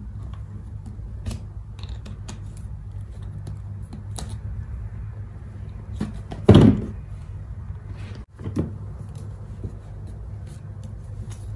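Handling noises of plastic glue bottles and glass bowls on a foam mat: scattered light clicks and taps over a steady low hum. There is one louder thump about six and a half seconds in and a smaller one about two seconds later.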